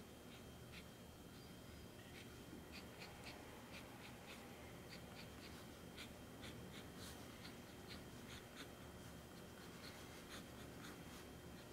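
Faint scratching of a pen on sketchbook paper: many quick, short hatching strokes at an uneven pace.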